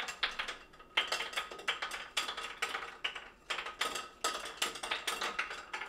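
Quick clicks and taps of hands handling small objects, in several short bursts with brief pauses between them.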